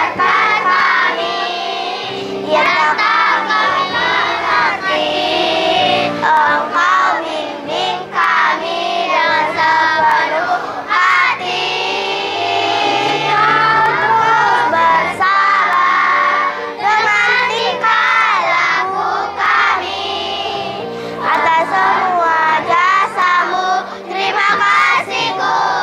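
A group of schoolchildren singing a song together in Indonesian, loudly and in unison, over a backing music track from a portable speaker.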